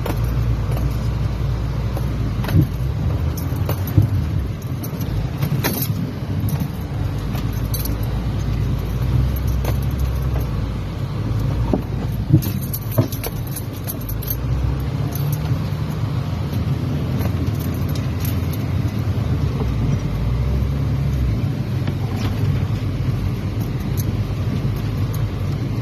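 Off-road 4x4 driving over rough ground: a steady low engine rumble, with rattling and a few sharp knocks and bangs from the vehicle's body and loose contents as it lurches.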